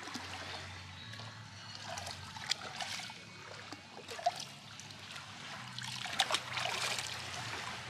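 Seawater trickling and splashing in small bursts as hands rinse and squeeze peanut worms in shallow water, with a few louder splashes partway through and near the end.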